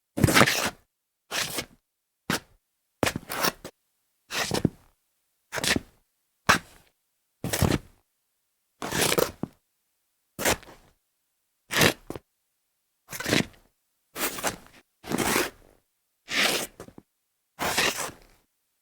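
Shoe soles scuffing on a tile floor: a series of short separate scrapes, about one a second, with silence between them.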